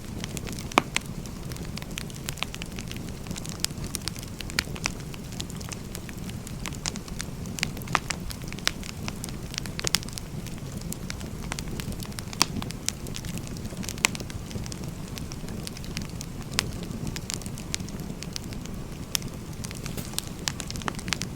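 Firewood burning: a steady low rumble of the flames with irregular sharp crackles and pops from the wood, several a second.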